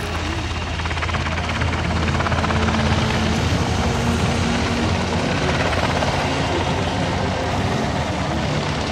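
Sikorsky CH-148 Cyclone helicopter flying by, its two turboshaft engines and main rotor making a steady, loud drone that grows a little louder about two seconds in.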